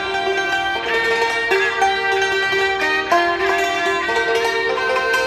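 Thai classical duet: a saw two-string bowed fiddle carries a sustained, gliding melody over the struck, ringing notes of a khim hammered dulcimer.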